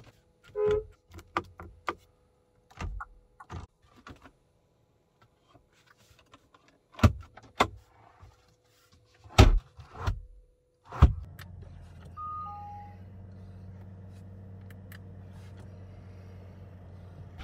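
Sharp clicks, taps and knocks of a hand working the interior trim and controls of a Bentley Flying Spur Mulliner. About eleven seconds in a steady low hum starts, with a short two-note chime just after.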